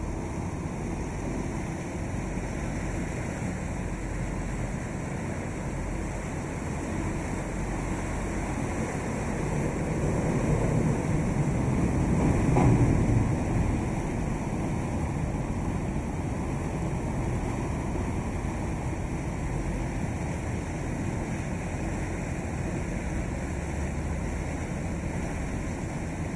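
Boat moving along a river: a steady rush of wind and water with a low hum, which swells louder for a few seconds near the middle as the boat passes under a steel bridge.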